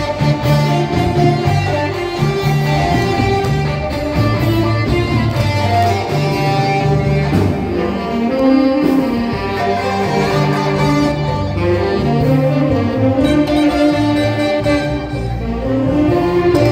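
Instrumental music with held melody notes over a repeating bass line.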